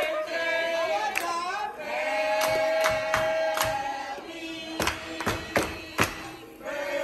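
Music with several voices singing together and a long held note, over drum hits that come about twice a second in the second half.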